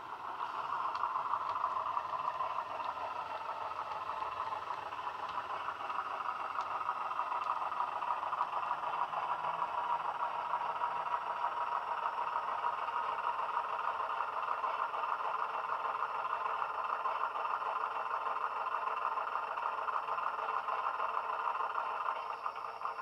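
Bachmann Class 117 DMU model's DCC sound decoder playing a first-generation diesel multiple unit's engines running, through the model's small speakers. The sound is steady and thin, with no deep bass.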